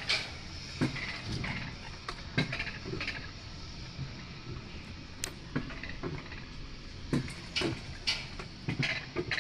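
Alpine coaster sled running along its metal rail track: a steady low rumble with irregular sharp clacks and knocks, and a brief high squeak about five seconds in.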